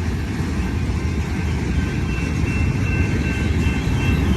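Freight train box cars rolling past on the rails: a steady low rumble, with a faint high steady squeal joining about halfway through.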